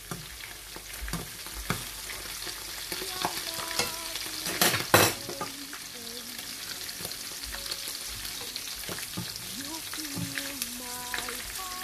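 Chicken pieces sizzling in oil in a nonstick frying pan, with a steady hiss, while wooden and metal utensils stir them and knock and scrape against the pan in short clicks. The loudest moment is a pair of loud bursts about five seconds in.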